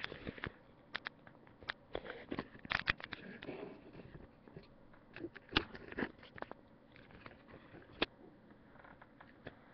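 Irregular clicks, taps and knocks of a webcam being handled and repositioned close to the microphone, with the sharpest knocks about three, five and a half and eight seconds in.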